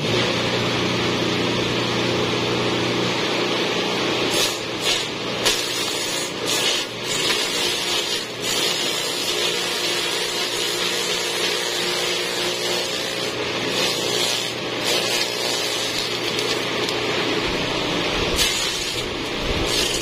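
Forage chopper running steadily as napier grass stalks are fed into it, a constant hum under a loud hiss of cutting. The noise swells unevenly each time a handful of stalks goes through the blades.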